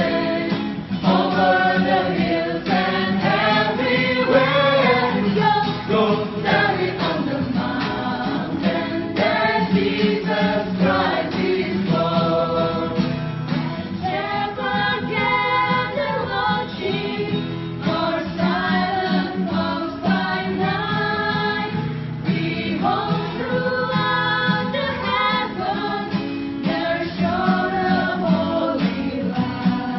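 A vocal group singing in several parts: moving melody lines over sustained low notes.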